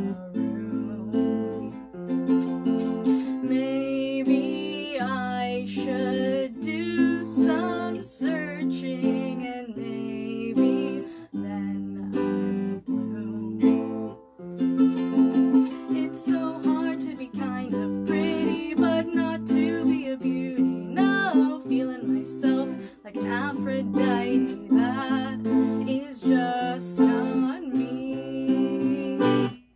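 Live song: a woman singing to strummed chords on an electric guitar and a ukulele.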